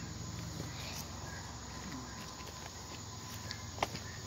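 Faint short chirps of insects repeating irregularly, over the low rumble and scuffing of a phone being carried while walking on a sidewalk, with one sharp click near the end.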